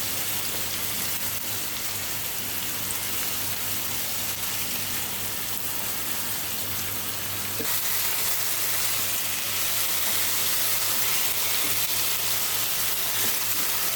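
Marinated chicken leg pieces sizzling in hot oil in a kadai over high flame, a steady frying hiss that gets a little louder about halfway through.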